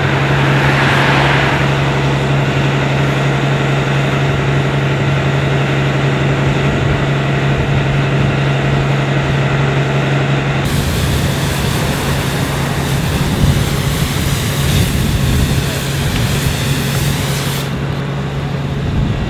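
DAF fire engine's diesel running steadily at a constant pitch, driving its high-pressure pump, with the hiss of a hose jet spraying water.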